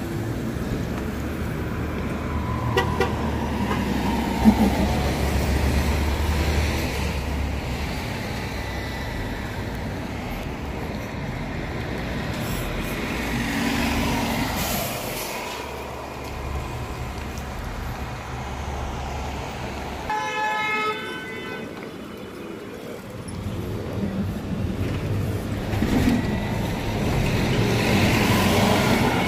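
City buses and street traffic running past with a steady engine rumble that swells and fades as vehicles come and go. A sharp knock sounds about four seconds in, and a short horn toot about two-thirds of the way through.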